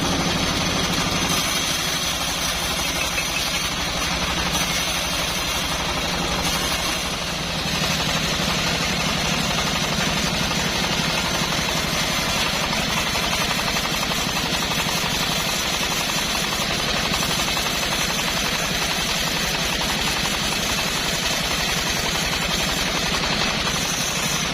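Engine-driven homemade bandsaw mill running steadily, sawing old teak heartwood.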